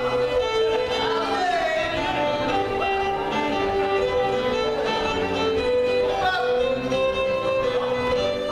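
Live fiddle playing a contra dance tune over steady keyboard accompaniment.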